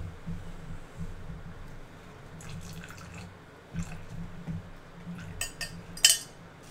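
Spatulas stirring and scraping cold process soap batter in plastic bowls while a scent and clay mixture is poured from a measuring jug into one of them, with a few light knocks of utensils against the containers; the sharpest knock comes about six seconds in.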